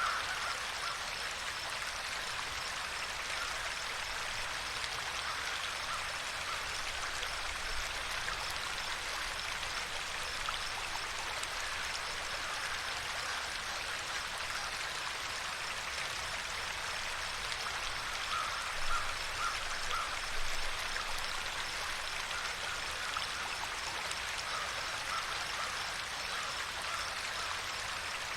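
Steady rushing of running water, even and unbroken. Faint runs of quick, short animal calls sound over it about two-thirds of the way through and again near the end.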